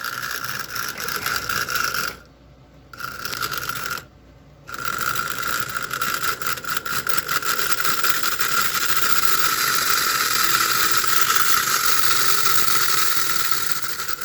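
Motor and gearing of a vintage Lionel-style O gauge toy locomotive running at full speed, a steady gear whine over fast clicking. It cuts out twice for under a second near the start, then runs on steadily. It runs at full speed because its drive wheels have been cleaned of dirt.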